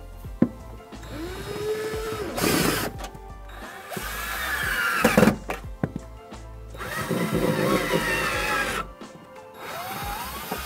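Black+Decker cordless drill driving screws in about four short runs, the motor whine rising in pitch at the start of each run and then stopping.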